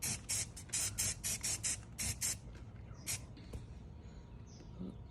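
A quick run of short, high-pitched hissing strokes, about four a second, for the first two and a half seconds, with one more about three seconds in: a hand tool or spray being worked on a craft piece.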